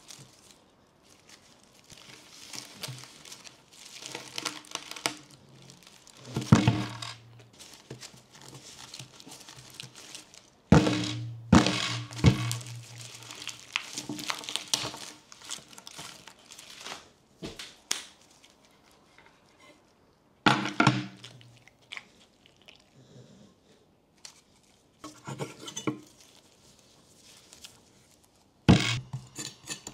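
A whole pineapple handled on a tabletop: its stiff leaves rustling and crinkling against gloved hands, with several sudden thuds as the fruit is set down and shifted on the table.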